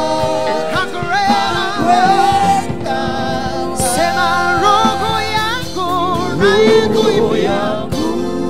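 Live gospel worship song: a male lead vocalist singing with a wavering, ornamented line over a band with keyboard and drums, backing singers joining in.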